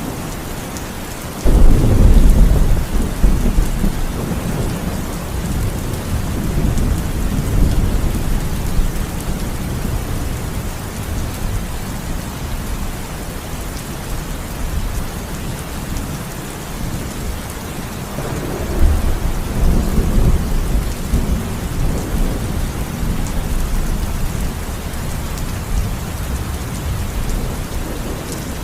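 Heavy rain falling steadily, with a sudden loud clap of thunder about a second and a half in that rumbles away over several seconds, and a second, weaker roll of thunder past the middle.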